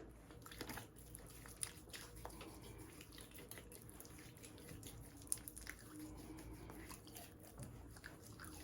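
Faint wet squishing and small scattered clicks of hands washing the face with soap.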